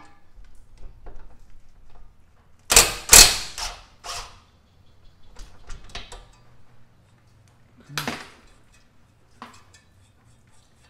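Metal clanks and small clicks from hand tools and parts being handled while the 17 mm lower control arm nut is taken off. The loudest are two hard clanks about three seconds in, with single clanks about a second later and near eight seconds.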